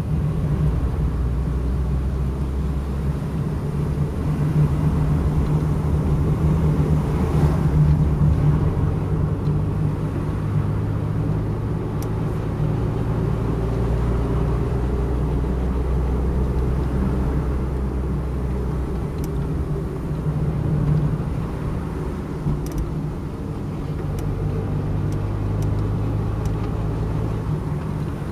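Car engine and tyre noise heard from inside the cabin while driving on a wet road: a steady low drone whose pitch steps down and back up a few times as the speed changes.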